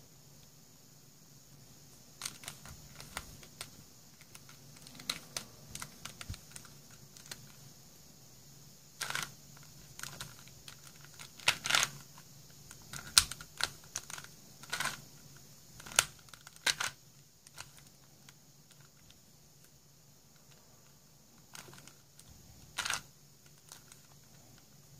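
Plastic pieces of a custom-modded four-layer Super Square-1 puzzle clicking and clacking as its layers are turned by hand, in irregular clusters with a few louder clacks. The turning pauses for a few seconds, then two more clacks come near the end.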